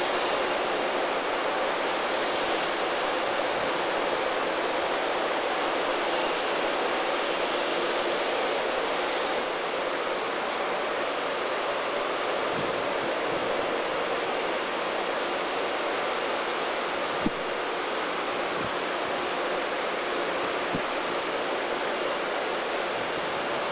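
A steady, even mechanical roar with a faint hum in it, unchanging throughout, and one sharp click about three-quarters of the way through.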